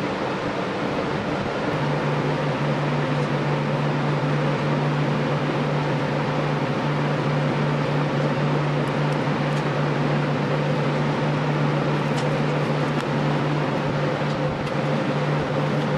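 Electric box fan running steadily with an airy rush, and a low steady hum joins in about two seconds in.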